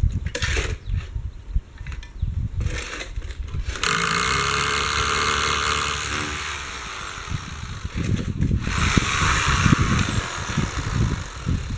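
Handheld angle grinder run twice: a steady high whine for about two and a half seconds that winds down with falling pitch, then about two seconds later a short second spin-up that rises and runs down again. A rough low rumble and knocks fill the start and end.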